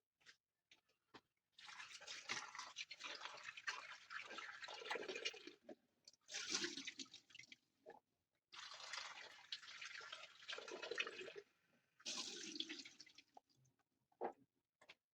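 Water splashing in four spells of one to four seconds each, with small knocks between them.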